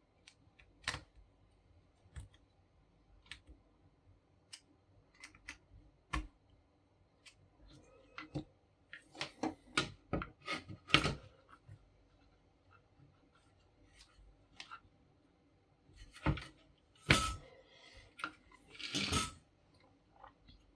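Irregular small clicks and knocks of hard parts being handled, with two louder clusters of clattering, about nine to eleven seconds in and sixteen to nineteen seconds in.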